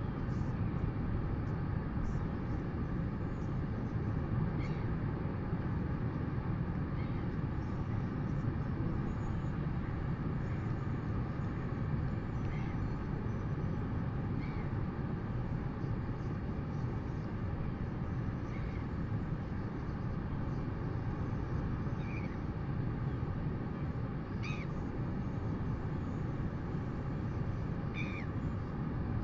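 Steady outdoor wind rumble on the camera microphone, with faint, short, high bird chirps every couple of seconds, a few of them slightly louder near the end.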